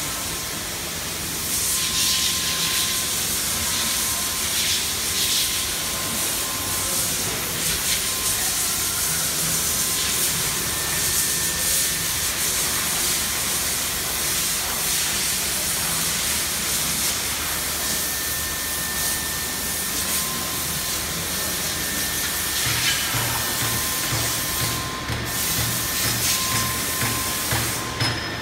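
CNC machining center running: a steady hiss of air and motor noise, with a faint high whine that comes and goes and a low rhythmic pulsing in the last few seconds.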